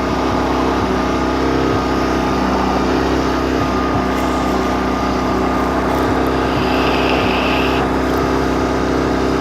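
Honda Rebel 250 motorcycle's air-cooled parallel-twin engine idling steadily while it warms up.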